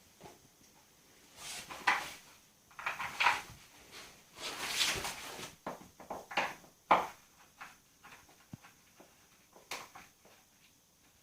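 Front mudguard and its fixings being handled and fitted to a mini bike: irregular knocks, scrapes and rustles, with a few sharp clicks, the sharpest about seven seconds in.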